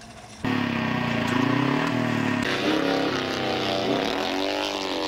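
Speedway motorcycle engine revving, its pitch rising and falling as the bike rides the dirt track; the sound starts abruptly about half a second in.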